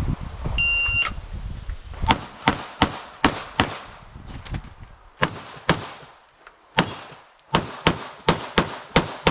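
An electronic shot timer gives its start beep, and a Walther Q5 Match SF pistol then fires about fourteen rapid shots in strings: five quick shots, a pause, then shots in twos and singles, and a fast run of six near the end.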